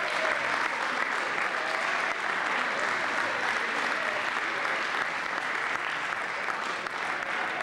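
Crowd applauding steadily, many hands clapping in a gymnasium.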